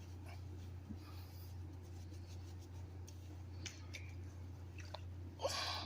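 Faint squishing and rustling of wet dreadlocks worked by hand in water, with light scattered clicks over a steady low hum, and a short louder rising sound near the end.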